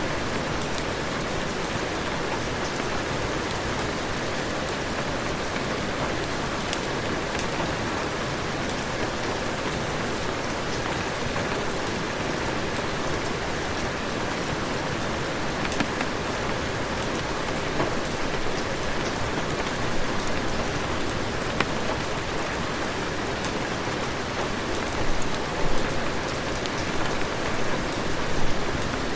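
Heavy rain falling steadily, a dense even hiss with scattered sharp drop ticks, and a few louder short hits near the end.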